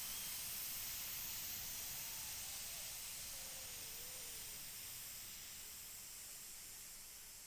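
Pressure cooker venting steam in a steady high-pitched hiss that slowly fades away, with a faint wavering whistle underneath.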